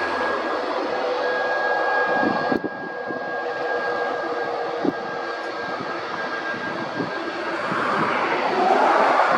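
Boeing 737 MAX 8's CFM LEAP-1B turbofan engines running at power: a steady jet roar with a high whine and a lower hum. It dips suddenly about two and a half seconds in and swells louder near the end as the jet comes toward the listener.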